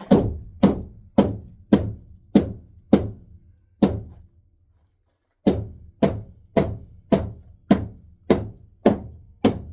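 Hammer blows on a wooden crossmember, driving the new beam into place under the RV floor: seven steady strikes about every half second, a short pause, then eight more.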